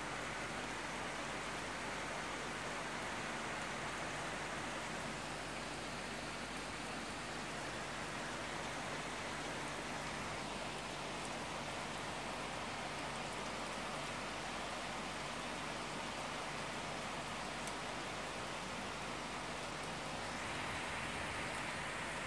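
Steady rain falling, an even hiss with no thunder claps, growing a little louder near the end.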